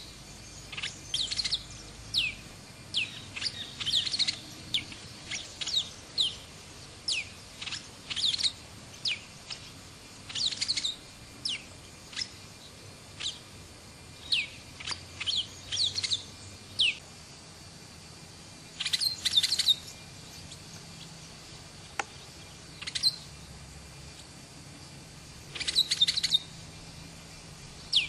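Brown-and-yellow marshbirds calling: a rapid run of short, sharp, downward-sliding notes, dense for the first half, then coming in a few separate bursts.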